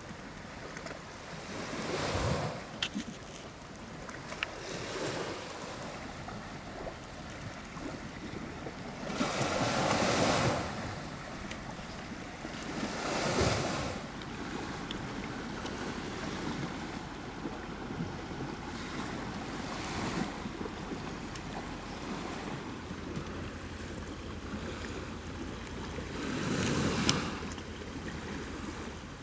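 Sea waves washing onto a shore: a steady wash of surf with several louder swells, each breaking over a second or two.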